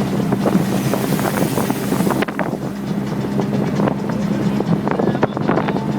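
Vehicle engine running with a steady low drone, with rattles and knocks throughout and a rush of wind noise in about the first two seconds.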